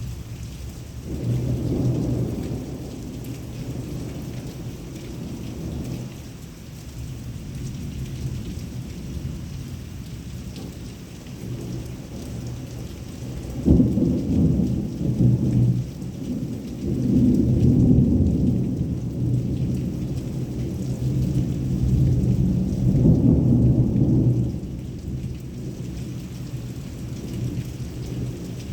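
Heavy rain falling steadily through a thunderstorm, with rolling thunder. One rumble comes a couple of seconds in, and a longer run of thunder starts with a sharp crack about halfway through and rolls on for about ten seconds.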